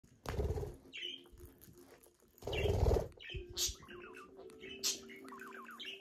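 Budgerigar chirping and chattering in short high calls and quick falling notes, with two loud rustling bursts in the first three seconds.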